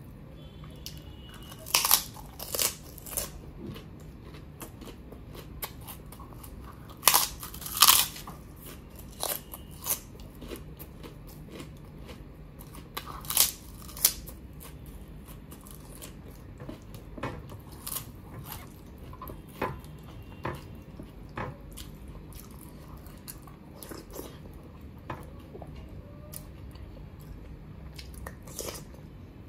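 Close-miked eating: a person bites and chews crisp fried papad, with loud, sharp crunches in clusters over the first half. Quieter chewing follows for the rest.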